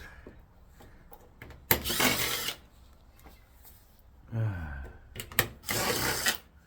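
Handling noise from working on an LCD TV's casing: two short rough scraping bursts, a click between them, and a man's sigh about four seconds in.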